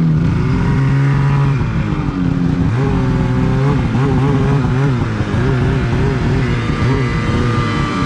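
Two-stroke snowmobile engine running hard under throttle. Its pitch rises and falls as the throttle is worked, dipping about two seconds in and climbing again near the end.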